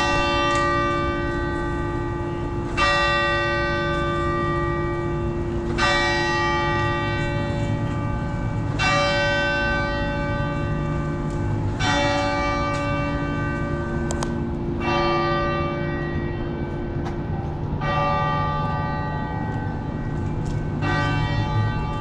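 A church bell tolling slowly, eight single strikes about three seconds apart, each ringing on until the next, over a steady low rumble.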